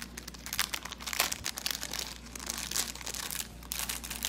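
Plastic jewelry packaging crinkling as a pair of earrings on their card is pushed back into it: a run of quick rustles with one sharper crackle about a second in.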